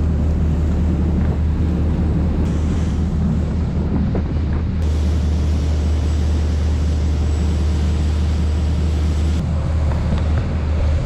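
Fishing boat's engine running under way at speed, a steady low drone, with wind and water rushing past.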